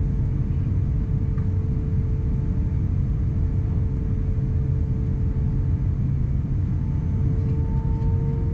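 Cabin noise of an Airbus A350-900 taxiing: a steady low rumble from its Rolls-Royce Trent XWB engines at low power, with a steady hum running through it.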